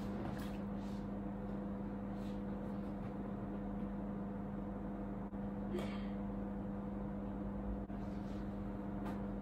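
Steady low hum of a wall-mounted split air conditioner running, with a few faint soft taps.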